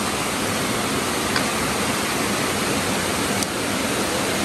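Steady rush of water from a small waterfall spilling over rocks into a shallow stream.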